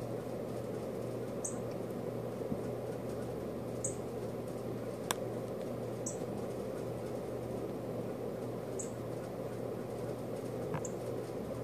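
Northern cardinal giving five sharp, very high chip notes, one every two to three seconds, over a steady low hum.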